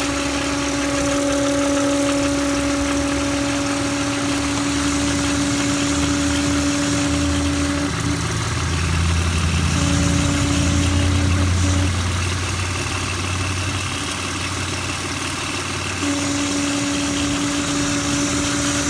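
2002 Audi A4 B6 3.0 V6 idling with a steady high whine from the PCV valve; the whine drops out about eight seconds in, returns briefly, cuts out again, and comes back for the last few seconds, with a deeper engine rumble louder while it is gone. The owner suspects a failing PCV valve or an oil filler cap that does not seal well.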